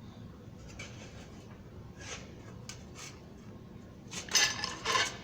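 Sheet-metal rim and bottom being shifted on the workbench: faint clicks and scrapes, then two louder metallic clatters near the end.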